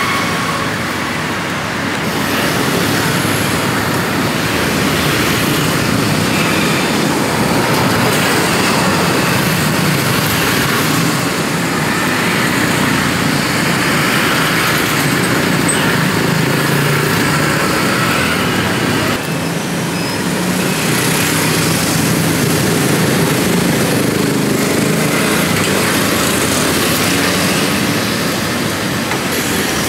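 Steady road traffic noise, a continuous dense rush of passing vehicles.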